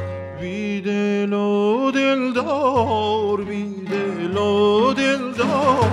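Wordless male singing in Persian classical style: a long, ornamented vocal line that glides and wavers up and down in pitch, over oud accompaniment.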